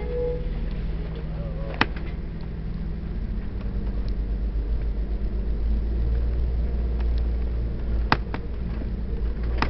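Vehicle engine and road rumble heard from inside the cab while driving, steady and low. Two sharp clicks stand out, one about two seconds in and one near the end.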